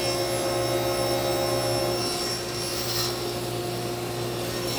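Table saw motor running steadily, a constant hum with a thin high whine.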